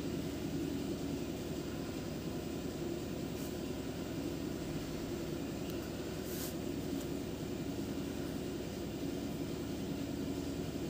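Steady low mechanical drone, like a room fan or motor running, with a few faint ticks.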